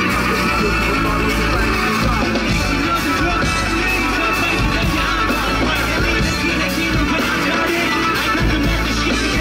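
Live pop band music played loud over a stage PA, with a steady beat.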